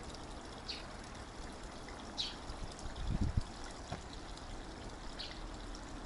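Spring water trickling steadily into a small stone-lined pond, with a few brief high chirps and a dull low bump about three seconds in.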